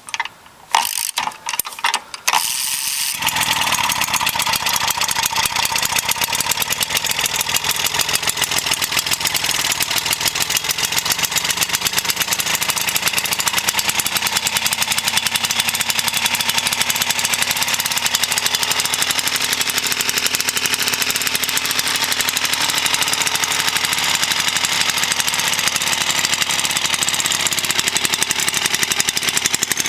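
Vintage ATCO lawnmower's Villiers engine being kick-started. A few sharp bangs come in the first couple of seconds. It catches about three seconds in and then runs steadily with a fast, even firing beat.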